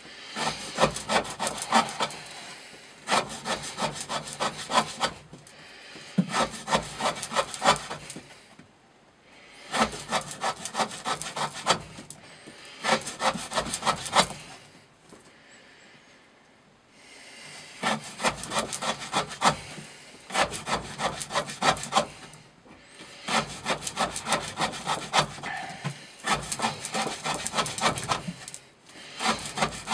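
Knife blade slicing through rope again and again. About ten separate cuts, each a crackling, sawing stroke of around two seconds as the fibres part, with short pauses between.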